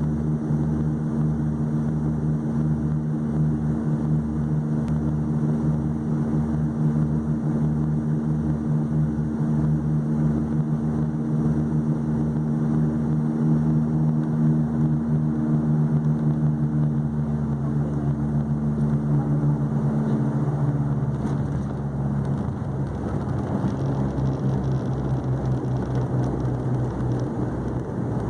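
Propeller drone of a turboprop airliner heard inside the cabin during landing: several steady low tones over a pulsing hum. About 21 seconds in the tones fade and give way to a rougher rumble.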